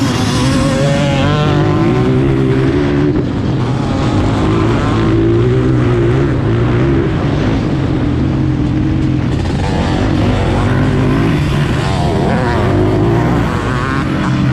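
Onboard sound of a racing three-wheeler ATC's engine running hard on a dirt track, its pitch rising and falling as the rider works the throttle.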